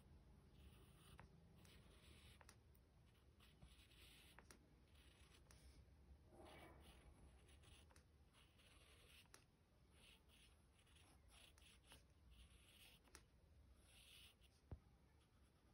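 Faint scratching of a graphite pencil on paper in short, repeated shading strokes, as the lines of a drawing are darkened. A single sharp click sounds near the end.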